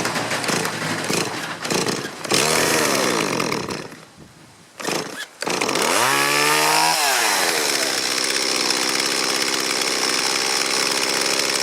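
Stihl MS 170 two-stroke chainsaw engine, freshly rebuilt with an aftermarket carburetor, revving up and back down twice with a brief dip about four seconds in, then running steadily at high speed.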